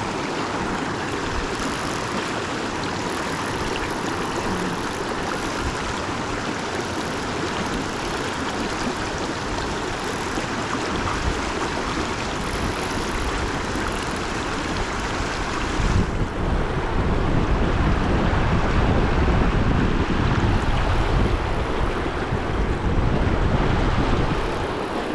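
Steady rush of river current. About two-thirds of the way through, wind starts buffeting the microphone with a low rumble, and the sound gets louder until just before the end.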